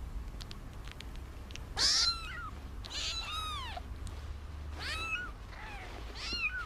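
Newborn kittens mewing while nursing: about five or six short, high-pitched mews, each rising and then falling in pitch, starting about two seconds in.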